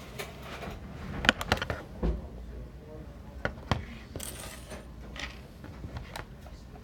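Irregular sharp clicks and light knocks of small objects being handled, with a short hiss about four seconds in.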